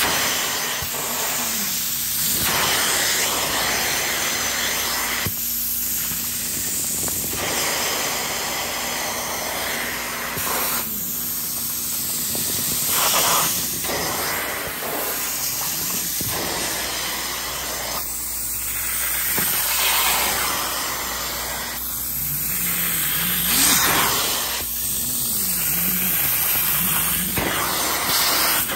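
Hot-water extractor's upholstery hand tool spraying and vacuuming a fabric sofa cushion: a loud hissing suction rush that swells and dips with each pass every couple of seconds, over a faint steady hum from the machine.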